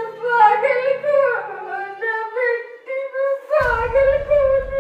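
Sad background music: a female voice humming a slow, wavering melody over a held note.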